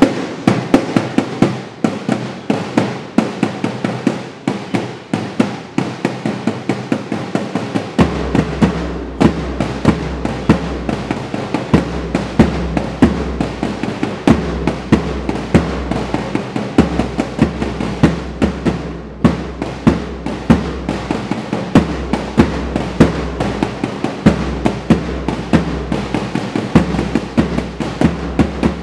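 March music with a steady, crisp drum beat; a low bass line joins about eight seconds in.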